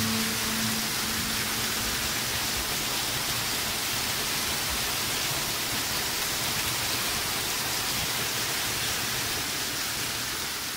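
Waterfall pouring down beside the path and splashing onto wet stone and rocks: a steady, dense rushing hiss like heavy rain, easing slightly near the end.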